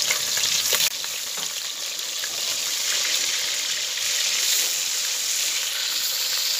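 Pieces of katla fish sizzling steadily as they fry in hot oil in a steel karahi, with a few light clicks of the spatula against the pan as the pieces are turned.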